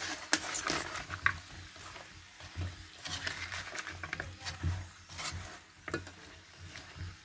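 Metal spatula scraping and knocking on a wok as sugar-glazed sweet potato chunks are turned, in irregular strokes, with light sizzling from the frying.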